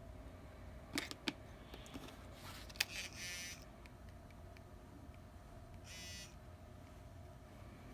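A few sharp clicks from a handled smartphone, followed by two short buzzes about three seconds apart.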